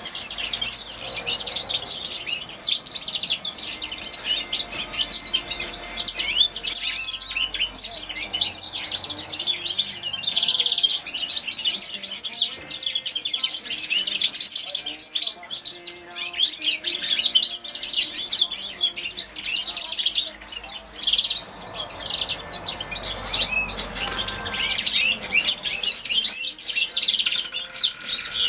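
Young hybrid finch sired by a grey singing finch, singing a long, rapid twittering song with short breaks about halfway through and again a few seconds later.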